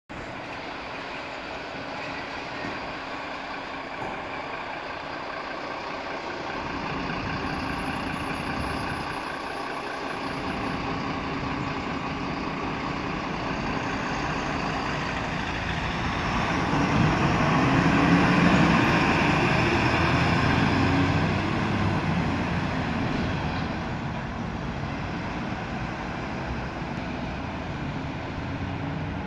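Diesel engines of fire-service vehicles idling and pulling away, a heavy fire-truck engine growing loudest as it passes close just past the middle, then fading.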